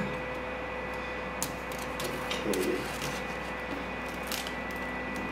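Hands rubbing and tapping over a shrink-wrapped cardboard box: a few short scrapes and crinkles of the plastic film, about a second apart, over a steady background hum.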